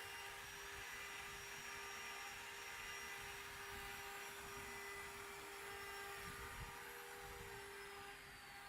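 CNC stone engraving machine running: a steady whir and hiss from its spindle motor with several steady tones. Near the end one high tone slides down and another tone stops.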